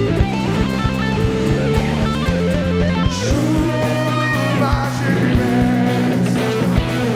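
Live gospel rock band playing an instrumental passage, led by guitar over bass and drums with a steady beat.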